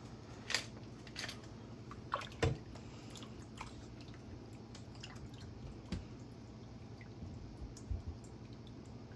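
Scattered light knocks and clicks of kitchen handling, a few sharper ones about two and a half seconds in, around six seconds and twice near eight seconds, over a quiet room background.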